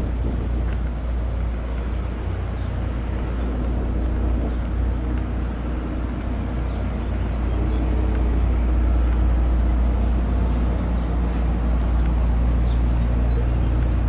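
Steady low drone of engine-driven machinery running, with several steady hums layered over the deep rumble and a slight rise in level about two-thirds of the way in.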